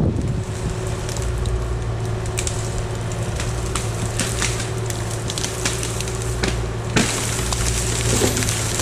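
Engine of a skid steer with a forestry mulching head running steadily, with irregular crackling and snapping of wood being chewed up. The crackle grows busier and brighter about seven seconds in.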